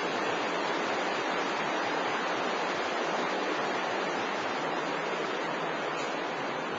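Steady rushing of sewer water flowing through the channel beside the walkway, an even noise that does not change.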